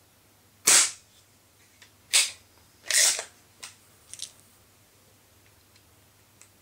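Baikal IZH MP-53M spring-piston break-barrel air pistol (.177) firing a shot over a chronograph, with sharp mechanical clacks from the gun: three loud ones spread over the first three seconds, then two small clicks.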